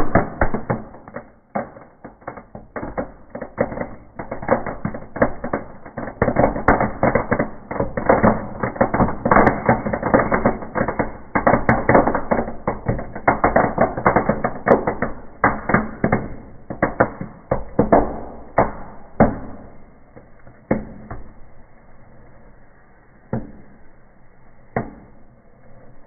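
A rapid, dense run of firecracker bangs and crackles going off inside a closed fireplace, thinning after about twenty seconds to a few single bangs near the end.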